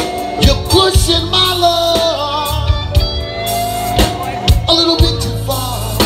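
Live band performing a song: a singer holds long, wavering notes over electric guitars, drums and keyboards, with regular drum hits.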